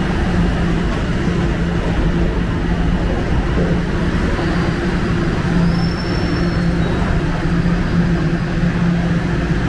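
Steady low mechanical hum of a subway station: the escalator running and a train standing at the platform, with a faint high whine briefly about six seconds in.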